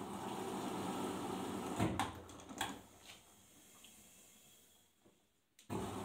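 Arçelik 5083 front-loading washing machine in its wash phase, the drum turning an overloaded load with water swishing and a few knocks about two seconds in. The drum then slows and stops for a moment, and starts turning again just before the end.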